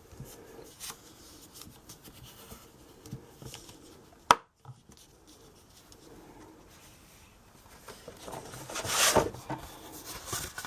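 Paper and crafting tools handled on a work surface: soft rustling and light taps, a single sharp click about four seconds in, and a louder stretch of paper rustling near the end.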